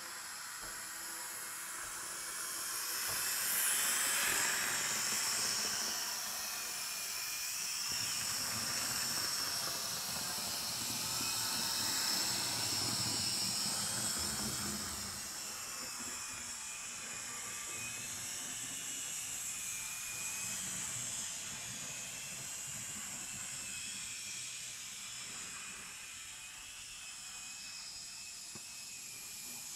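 Z scale model train running on the track: a high, wavering whine of its tiny electric motor over a steady hiss, swelling twice as the train comes close.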